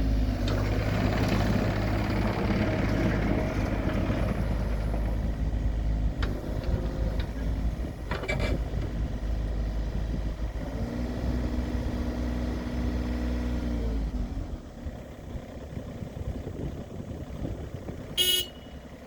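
John Deere 35G compact excavator's diesel engine running, with a steady pitched whine joining in for a few seconds before the engine shuts down about 14 seconds in. Near the end, one short high-pitched beep.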